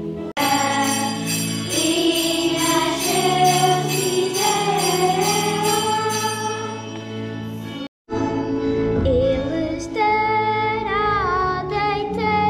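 Children's choir singing a Christmas hymn over percussion that keeps a steady beat of about two and a half strokes a second. After a short break about eight seconds in, a single girl's voice carries the melody.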